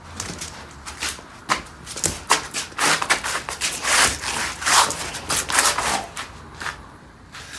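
Irregular handling noises: a run of short rustles and clicks.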